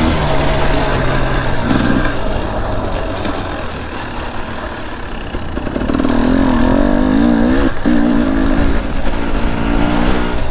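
Two-stroke dirt bike engine revving up and down while riding, easing off for a couple of seconds in the middle and then pulling hard again from about six seconds in, over a steady low rumble.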